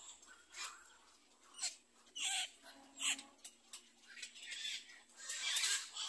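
Short raspy calls from a black-crowned night heron nestling and its parent at the nest, coming in irregular bursts, with a longer, louder burst near the end.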